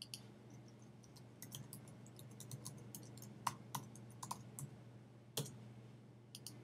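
Typing on a computer keyboard: a quick run of key clicks as a username and password are entered, then a few louder separate clicks, over a faint steady low hum.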